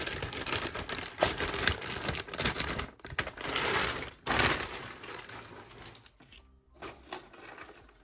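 Clear plastic bag crinkling and rustling as a rifle is handled inside it, with a few sharp clicks. The rustling is loudest in the first half and dies down to quieter crackles after about five seconds.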